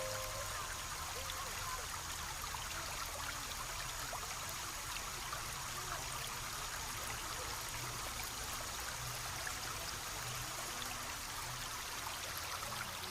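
Small stream trickling and babbling steadily over stones.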